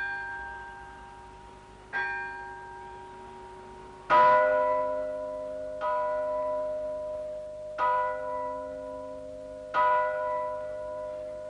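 Church bells tolling for the noon bell-ringing, one strike about every two seconds, each left ringing into the next. About four seconds in a deeper, louder bell joins, and from then on the strikes sound together.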